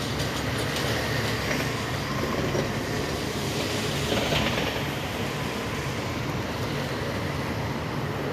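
Steady road-traffic noise from a dual carriageway, with a vehicle passing about four seconds in.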